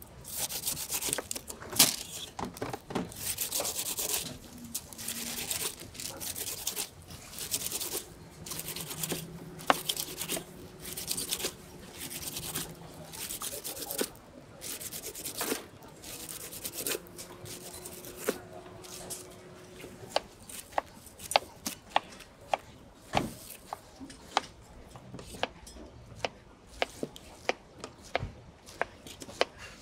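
A large knife cutting the rind off a whole pineapple in rasping strokes, then, in the second half, short sharp knocks of the blade against the cutting board as the eyes are carved out and the fruit is cut.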